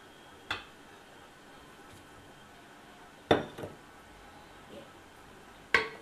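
Three sharp clinks and knocks of cookware against a metal kadhai as fried paneer cubes are tipped in and moved with a wooden spoon: one about half a second in, a louder quick double past the middle, and one near the end.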